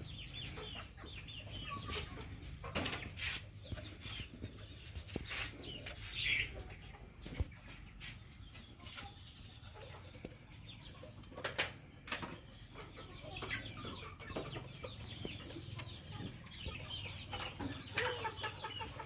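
Chickens clucking and calling in short repeated notes, with a few sharp knocks here and there.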